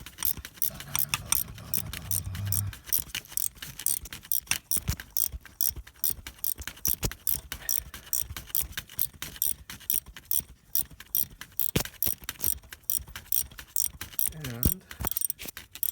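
Rapid, even clicking of a ratchet wrench turning out a broken exhaust manifold bolt, with a nut welded onto it, from the cylinder head of a 5.3 Vortec V8.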